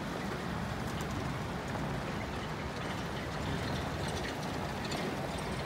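A line of pickup trucks driving along a dirt road: a steady rumble of engines and tyres.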